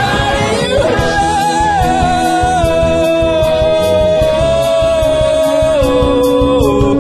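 Live rock band music: a singer holds one long high note over guitar, bass and drums, and the note steps down in pitch near the end.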